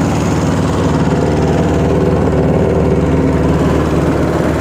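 Engine of the vehicle being ridden in, running steadily at an even speed with a low drone.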